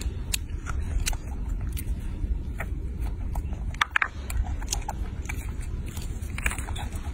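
A baby macaque biting and chewing longan fruit: scattered crisp clicks and crackles of the shells and flesh, a cluster of them about four seconds in, over a steady low rumble.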